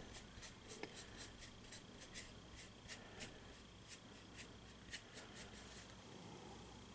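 Bristle brush strokes on canvas laying in oil paint: faint, quick scratchy strokes, several a second, that thin out near the end.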